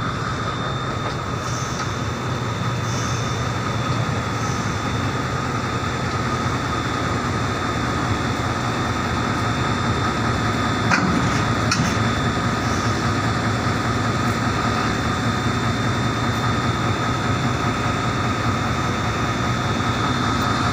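Diesel locomotive engine running steadily with a constant hum and whine as the replacement locomotive is brought onto the train, with two faint sharp clicks about eleven and twelve seconds in.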